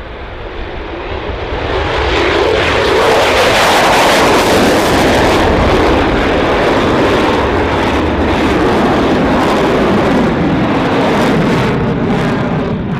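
Jet roar of an F-22 Raptor's twin turbofans in afterburner during takeoff and steep climb, swelling over the first couple of seconds, holding loud and steady, then dropping away near the end.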